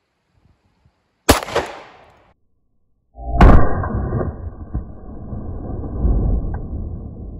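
Sig Sauer P320 Compact pistol being fired outdoors: one sharp shot about a second in, then a louder second shot about two seconds later. The second shot leaves a long ringing tail that fades over several seconds.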